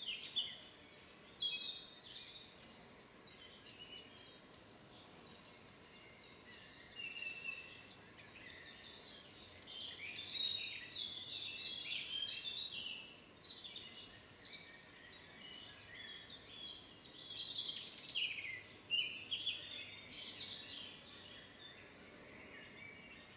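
Woodland songbirds singing, several overlapping songs of quick trills and whistled phrases. The singing is busy at the start, thins out for a few seconds, then is densest through the middle and later part.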